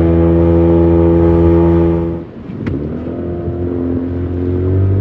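An engine runs steadily at constant revs, then the throttle is chopped a little over two seconds in, with a single click. The revs then climb steadily again.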